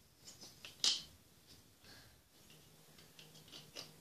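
A few faint clicks and light taps of small objects being handled, with one sharper click about a second in.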